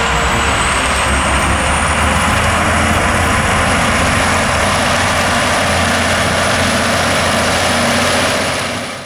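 John Deere 9530 articulated tractor's diesel engine running steadily under load as it pulls a wide cultivator, with a thin high whine that rises over the first two seconds and then holds. The sound fades out near the end.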